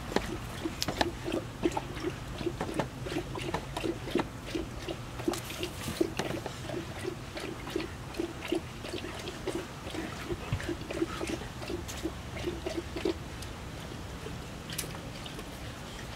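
A dog panting in a steady rhythm of about three breaths a second, with wet licking and mouth clicks as one dog licks the other's face; the panting stops about three-quarters of the way through.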